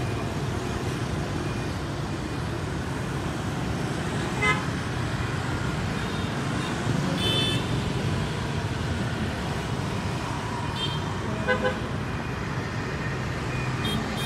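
Street traffic of motorbikes and cars passing with a steady low rumble, and several short horn beeps, including a quick double beep later on.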